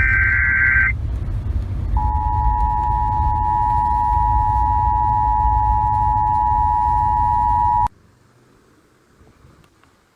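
End of an Emergency Alert System SAME header, a brief burst of warbling digital data tones, then after about a second's pause the two-tone EAS attention signal, a steady dual tone held for about six seconds that cuts off abruptly. A low radio hum runs under it until the cut.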